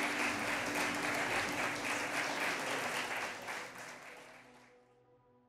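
Audience applauding with soft music under it, fading out over the last couple of seconds until only the music's faint held notes remain.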